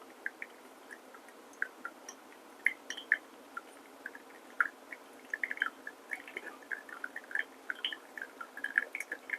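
Coffee dripping from a pour-over dripper into the server: faint, irregular plinks that come more often from about halfway through.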